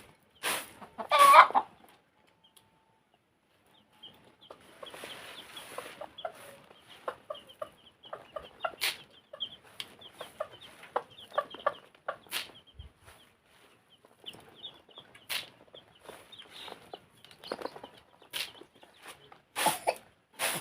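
Chickens clucking, with one loud call about a second in. After a brief drop-out, a busy run of short clucks and rapid high chirps follows.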